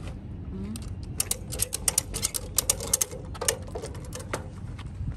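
A rapid, irregular run of light mechanical clicks and clinks lasting a few seconds, over a steady low rumble.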